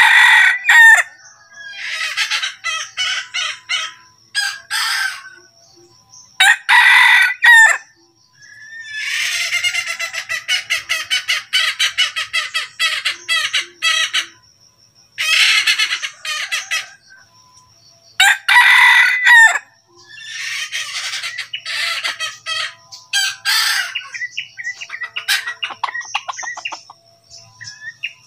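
Red junglefowl rooster crowing about four times, with runs of rapid, repeated clucking between the crows.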